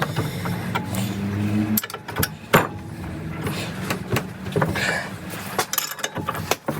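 Bolts being worked loose from the end cap of a log splitter's hydraulic cylinder: a steady hum for about the first two seconds, then a run of sharp clicks and metallic knocks from the tools and bolts.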